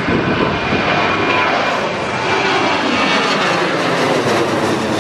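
Boeing 737 jet airliner's twin turbofans at climb thrust after take-off: a steady loud jet noise with a higher fan whine, and a tone that falls in pitch over a few seconds as the aircraft passes.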